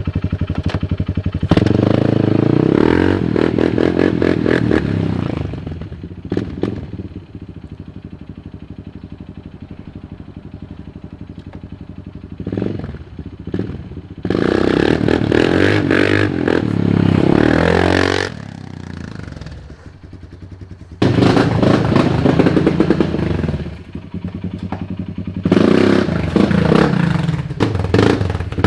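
Kawasaki Brute Force 300 ATV's single-cylinder four-stroke engine, its carburetor fitted with a Dynojet Stage 1 jet kit, revved hard in four loud bursts. Between bursts it drops back to a quieter idle.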